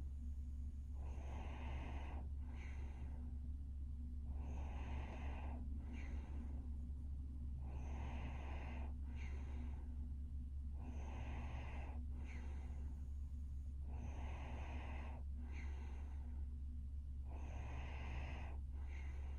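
A sleeping woman snoring and breathing slowly, about one breath every three and a half seconds. Each breath is a longer rasping sound followed by a short one with a faint whistle, heard six times over a steady low hum.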